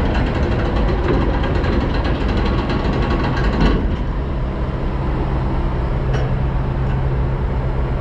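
Semi truck and grain-handling machinery running steadily at a grain dump pit, with a low hum, while wheat pours from the trailer's hopper through the grate; the rushing hiss of the grain drops away about four seconds in, and a short click follows about two seconds later.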